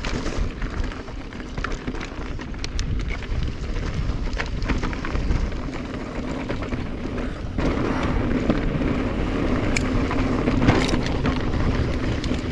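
A 2021 Specialized Stumpjumper EVO Comp mountain bike descending a dirt trail: tyres rolling over dirt and the bike rattling and clicking over bumps, with wind on the microphone. The noise gets louder about two-thirds of the way in.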